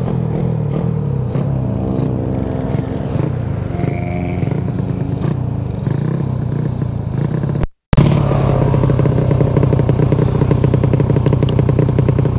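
Motorcycle engine running on the move, its pitch slowly rising and falling. After a short break about eight seconds in, a louder motorcycle engine runs steadily with a fast pulse.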